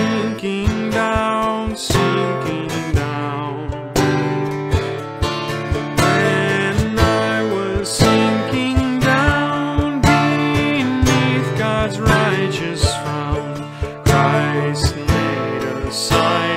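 A hymn sung to acoustic guitar: a voice carries a slow melody over strummed and plucked chords.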